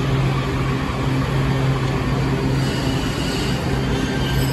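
Washington Metro train at an underground platform: a steady low hum from the train's equipment over a constant rumble, echoing in the station vault.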